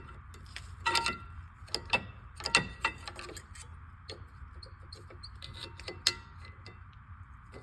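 Sharp metallic clicks and clinks of a small screwdriver prying the old rear brake pads out of the caliper bracket. Several come in the first three seconds, some ringing briefly, and there is one more about six seconds in.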